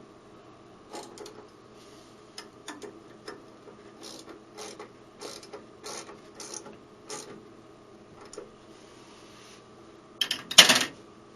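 Ratchet wrench clicking in a run of short strokes, tightening the locking bolts of a lathe's fixed steady rest, then a loud clatter about ten seconds in.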